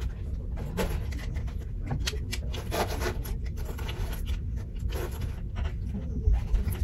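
A fabric backpack being handled and packed: a string of irregular rustles, scrapes and light knocks over a low steady rumble.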